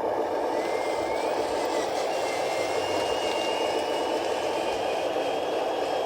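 Small electric motor and gearbox of a remote-control construction truck running steadily, a whirring hum with a thin whine that drifts slowly up and down in pitch as the speed changes.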